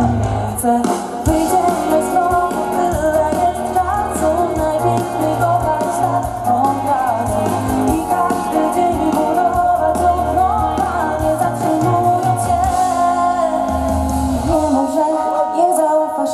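A woman singing lead into a microphone with a live pop band of electric guitar, bass and drums, loud and steady. The deep bass drops out near the end.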